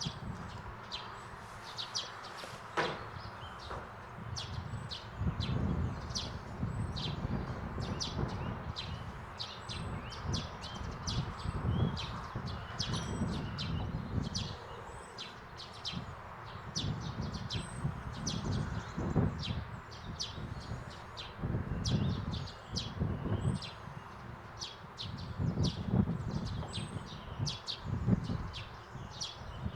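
Small birds chirping over and over, quick short high notes several times a second, over an uneven low rumble that comes and goes. There is a sharp click about three seconds in.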